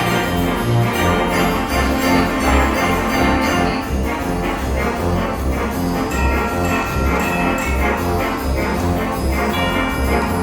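Orchestral music with brass, over a bass line that moves in regular steps.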